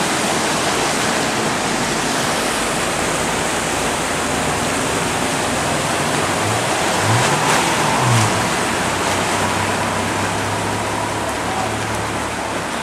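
Steady rush of water as vehicles plough through a flooded street, their tyres throwing up bow waves. About halfway through, a passing car's engine rises and falls, with two brief knocks, then settles into a low steady hum.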